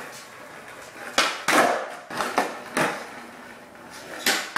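Skateboard rolling on a concrete floor, with about five sharp clacks from the tail popping and the board landing during kickflips, echoing in a small room.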